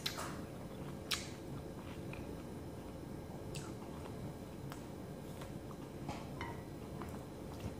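A person eating: chewing with scattered sharp mouth clicks and smacks, over a steady low hum.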